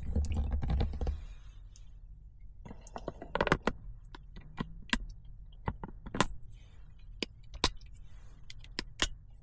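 Scattered sharp clicks and clinks of small hard objects being handled, with a dull knock and low rumble in the first second.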